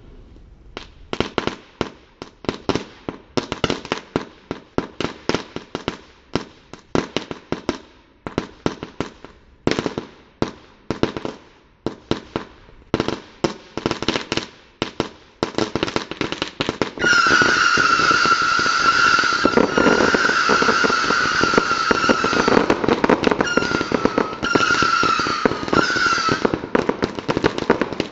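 Saturn Missile firework battery firing its small rockets: a rapid string of sharp pops starts about a second in. Past the middle the shots come thick and fast under a continuous shrill whistle, which fades out near the end while the pops carry on.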